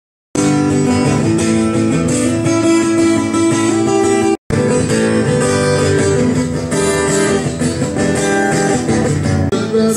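Background music led by plucked and strummed guitar, with a brief dropout about four and a half seconds in.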